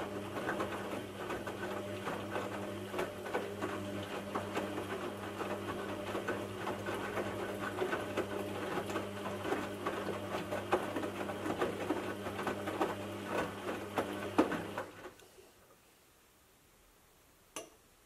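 Aldi front-load washing machine in its wash stage: the motor turns the drum with a steady hum while wet clothes tumble and water splashes. The drum stops about fifteen seconds in, leaving near quiet, and a single click comes near the end.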